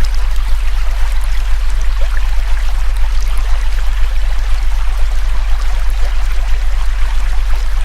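A steady, very low electronic tone, the sound-therapy 'frequency', played over a river's running water.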